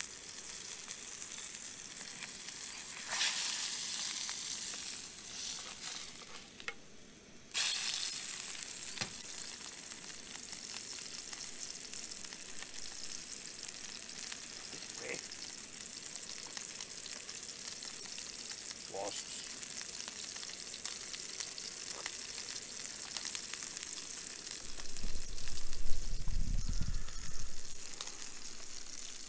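Burgers sizzling in a frying pan on a portable gas camping stove, a steady hiss that fades for a moment about six seconds in and comes back suddenly. A low rumble near the end.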